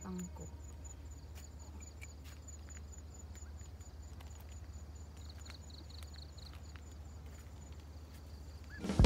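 Open-air ambience: a steady low rumble of wind on the microphone, with insects chirping faintly in an even high-pitched pulse and a short run of quicker chirps a little past the middle.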